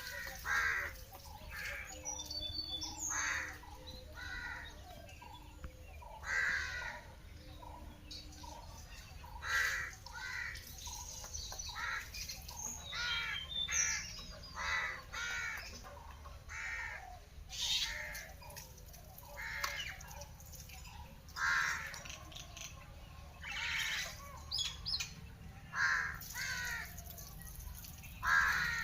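Crows cawing over and over, short harsh calls coming every second or two, with occasional higher chirps from small birds.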